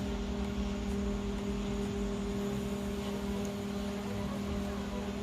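LG microwave oven running a heating cycle with a steady hum. There is none of the loud noise it was brought in for: the water heats normally.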